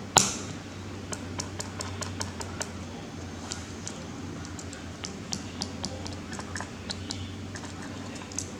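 One sharp knock just after the start, then irregular light clicks and taps from small hard parts being handled, over a low steady hum.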